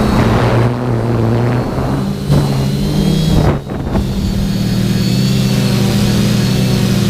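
TBS Discovery quadcopter's electric motors and propellers buzzing in flight; the throttle is briefly chopped about three and a half seconds in, the buzz dropping, then brought back up to a steady buzz.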